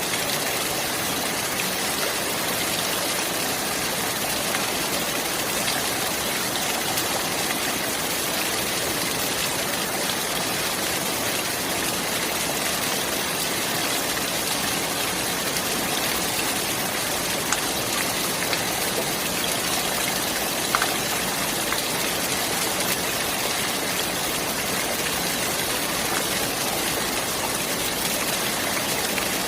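Clear running water, a steady even rush and hiss with no change in level, with a couple of faint small ticks in the flow.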